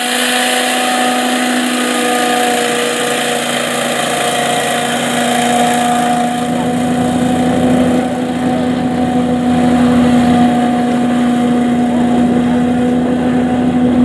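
Boat engine running at a steady pitch under way, towing slowly.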